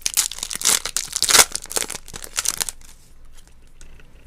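Crinkling and tearing of a trading-card pack's wrapper as it is handled and torn open, busiest for the first two to three seconds and then dying down to light rustling.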